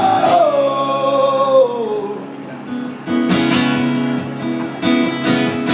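Live acoustic guitar and male voice: a held sung note slides down and fades over the first two seconds. Strummed acoustic guitar picks up again about three seconds in.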